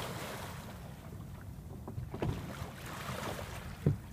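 Water sloshing and slapping against a small boat's hull, with wind buffeting the phone's microphone. There is a dull knock about two seconds in and a louder, sharper one just before the end.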